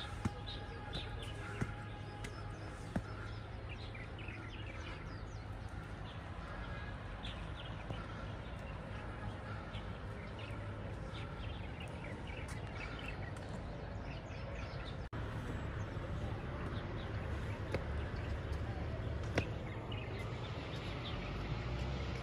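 Small birds chirping over a steady low outdoor hum, with faint distant voices and a few sharp clicks.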